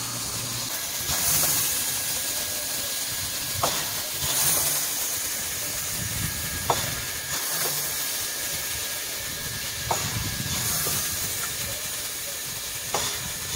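Steam hissing steadily from a standing Soviet L-class (Л) steam locomotive, swelling louder about every three seconds, with a few short sharp clicks in between.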